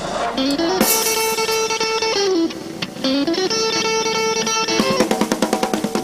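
Electric guitar playing a blues intro. Twice a note rises into a long held tone and then falls away, and near the end a run of quick picked notes follows.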